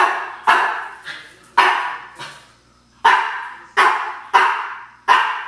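A dog barking repeatedly, about seven barks at uneven gaps, each one sharp at the start and trailing off.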